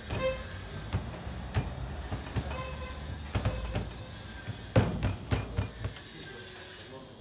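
Hands pressing and slapping minced döner meat flat on a stainless-steel counter: scattered wet pats and knocks, the loudest a few sharp ones about five seconds in, over a steady low rumble.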